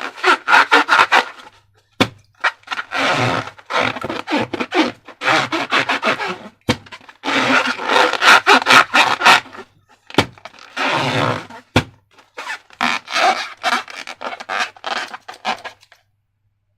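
Slime being worked by hand: rubbing and scraping sounds in bursts a second or two long, with four sharp clicks between them.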